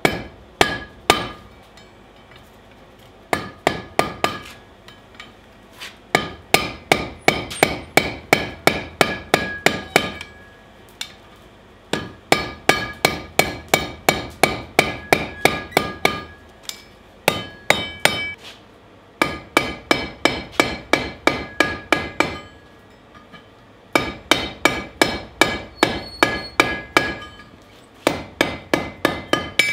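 Blacksmith's hand hammer striking a red-hot ring of iron (the eye of a bottle opener) over the horn of an anvil. The blows come in runs of quick, even strikes, about four a second, with short pauses between runs, and each strike rings with a bright metallic tone.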